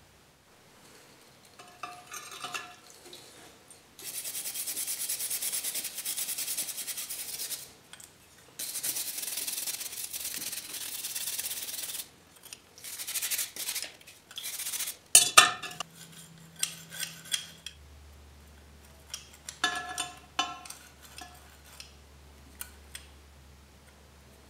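A rusty iron areca nut cutter being rubbed and scrubbed in its soaking liquid in a glass dish, in two long steady spells. Then sharp clinks of the metal tool against the glass dish, the loudest near the middle and a quick cluster later on.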